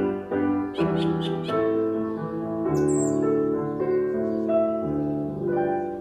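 Piano accompaniment playing an instrumental passage of a children's song, with a few quick high bird chirps about a second in and another near the middle. The music fades down near the end.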